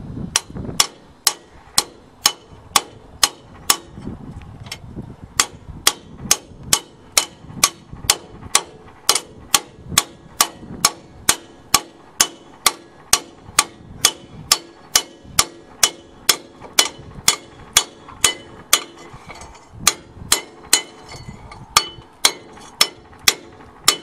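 Hammer striking a homemade steel driver over and over, a little over two blows a second with a brief pause about four seconds in, each blow a sharp metal-on-metal clank. It is driving a new rear axle bearing into a Case backhoe's axle housing.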